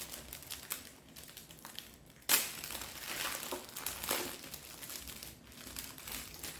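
Packaging being opened and crinkled by hand: scattered crinkles and rustles, with a louder burst about two seconds in.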